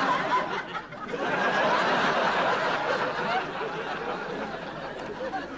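Audience laughing, a big swell of crowd laughter that dips briefly about a second in, rises again and slowly eases off.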